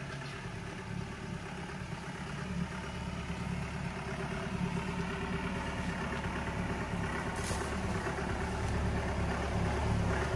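Mahindra 4x4 jeep's diesel engine running steadily at low revs, getting slightly louder toward the end.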